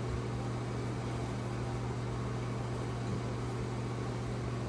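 Steady low hum over an even hiss, unchanging throughout, with no distinct knocks or clicks: room tone.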